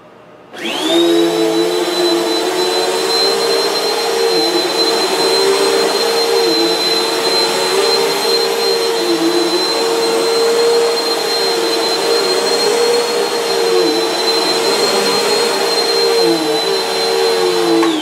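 Bissell ProLifter Swivel Pet Pro upright vacuum switched on about half a second in, its motor whining up to speed, then running steadily on carpet with a high whine over a lower hum that wavers every second or so. Near the end it is switched off and the whine falls away.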